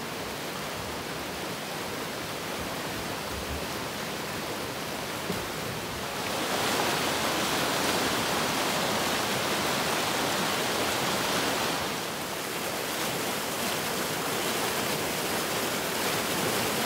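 Floodwater rushing through and over a concrete low-flow creek crossing, a steady churning rush of a creek in flood. It grows louder about six seconds in.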